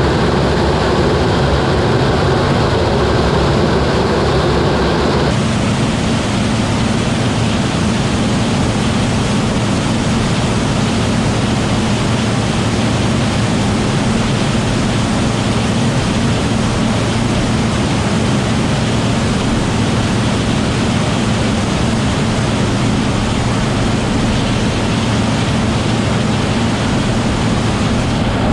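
Combine harvester running steadily: a dense, even mechanical drone with a low hum underneath. The sound changes abruptly about five seconds in.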